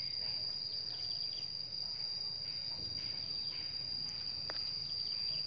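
An insect's steady, unbroken high-pitched trill, holding one pitch throughout.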